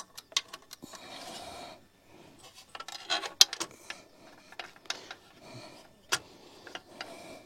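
Scattered metallic clicks, clinks and scrapes of a bolt and hand tools as a scooter's exhaust mounting bolt is fitted and started by hand.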